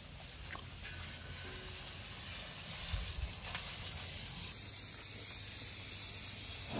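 Steady hiss of water spraying from a hose while a horse is washed.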